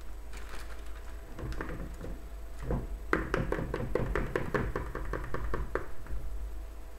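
A stainless steel mesh sieve being shaken over a plastic bowl, its frame rattling against the bowl's rim: a few scattered taps, then from about three seconds in a quick run of about six knocks a second that stops shortly before the end.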